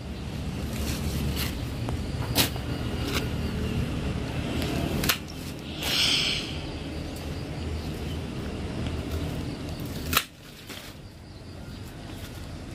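Leafy branches of a waru sapling being handled, with a short rustle about six seconds in, over a low steady rumble. Three sharp clicks come about two, five and ten seconds in, the last the loudest.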